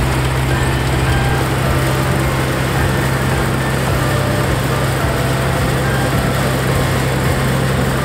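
Iseki combine harvester running steadily under load as it cuts and threshes rice, with a constant engine hum and machinery noise. Faint background music sits underneath.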